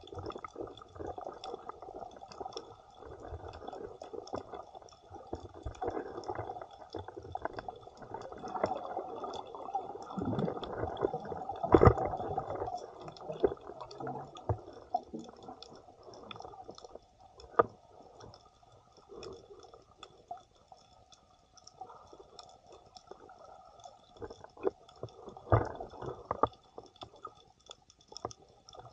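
Muffled underwater water movement, a shifting gurgling wash from a snorkeler swimming and diving over the reef, heard through the camera's housing. Scattered small clicks run through it, and a louder knock comes about twelve seconds in.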